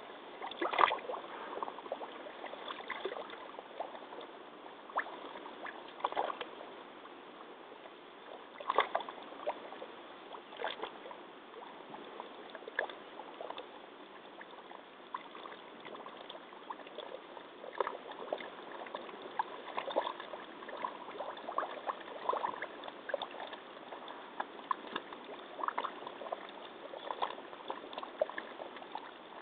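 Muddy water sloshing and lapping with irregular small splashes as a wearer of rubber hip waders shifts in a deep mud pool, picked up close by a flip phone's thin-sounding microphone at the water's edge.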